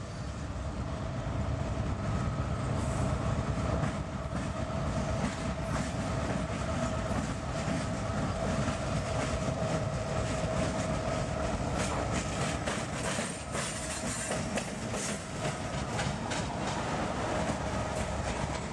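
Train running past on the rails, growing louder over the first couple of seconds, then a steady rumble and hum with its wheels clicking over rail joints.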